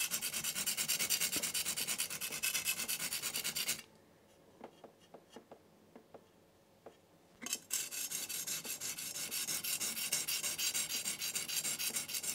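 Steel knife blade stroked back and forth on a coarse 220-grit King G-45 whetstone in quick, rhythmic grinding strokes, working the tip to raise a burr there. The stroking stops a little under four seconds in, with a few faint taps in the pause, and starts again about three and a half seconds later.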